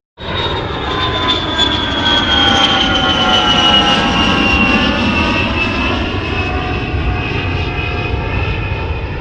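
Airplane flying past, its engine noise a steady rumble with a high whine that slowly falls in pitch as it goes by.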